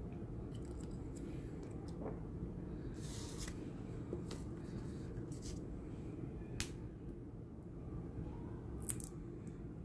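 Small plastic parts of a cut-open Disney MagicBand clicking and tapping as they are handled, with a short rustle about three seconds in and two sharper clicks later on, over a steady low background hum.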